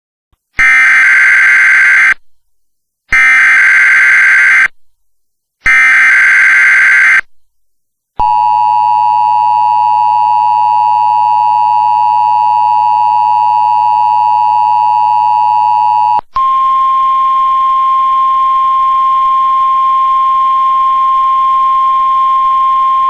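Emergency Alert System tones for a winter storm warning. Three short bursts of the warbling digital header come first. The steady two-tone EAS attention signal follows, held for about eight seconds, then it switches to a single steady weather-radio alert tone.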